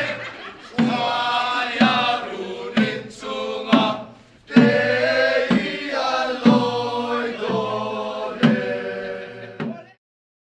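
A group of voices singing together, with a strong beat about once a second. The singing cuts off suddenly near the end.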